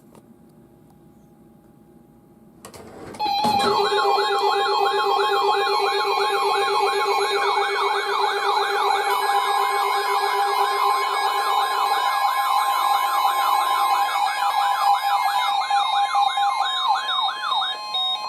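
Weather radio alert alarms: a loud steady warning tone overlaid with several warbling, siren-like alarm tones that sweep up over and over, starting suddenly about three seconds in after a quiet hum. The lowest tone drops out about twelve seconds in while the rest continue. The alarm signals a new severe thunderstorm warning being issued.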